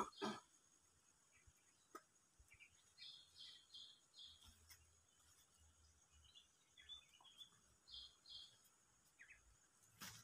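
Faint bird chirps in short runs of quick repeated high notes, heard a few times over otherwise near-silent outdoor quiet.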